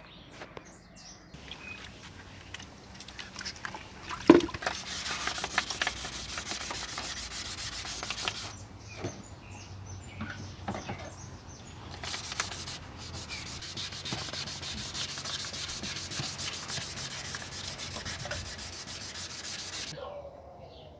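Sandpaper rubbed by hand over a Honda Civic's plastic headlight lens in rapid back-and-forth strokes, to sand off the cloudy, yellowed surface. The sanding comes in two long spells with a short pause of scattered clicks between them. A single sharp knock sounds about four seconds in, just before the first spell.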